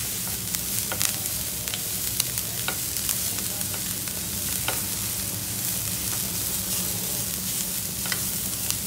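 Grated carrot, capsicum and French beans sizzling in butter in a non-stick frying pan, softening as they fry, stirred with a silicone spatula that taps and scrapes against the pan now and then.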